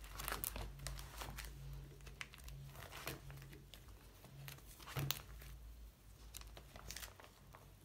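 Plastic photocard sleeve pages in a D-ring binder rustling and crinkling as they are flipped and handled, with scattered soft clicks and one louder knock about five seconds in.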